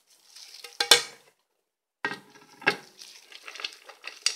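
Dry pieces of herbs and roots rustling and crackling as they are dropped by hand into a glass jar, with a few sharp knocks against the glass, the loudest about a second in.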